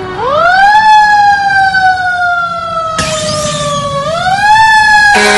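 Fire engine siren wailing: its pitch rises, falls slowly, then rises again about four seconds in. A sharp click comes about three seconds in, and a steady blaring tone takes over at the very end.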